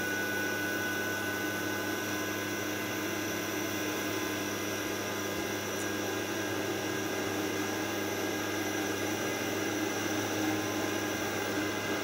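Soldering fume extractor's fan running steadily: an even rushing noise with a faint steady whine, as it draws air through its filter.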